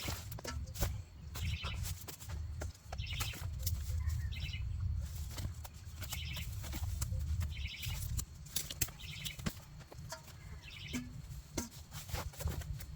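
Clicks, crunches and rustles of hands digging through potting soil and handling potatoes in a container, over a low rumble. A short, high buzzy trill repeats every second or two in the background.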